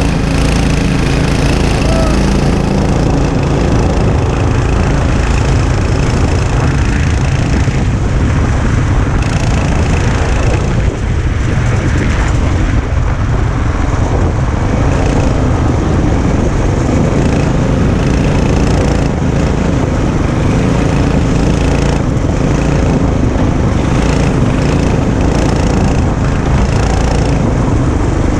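Small go-kart engines running hard during a race: a loud, continuous buzz that holds without a break.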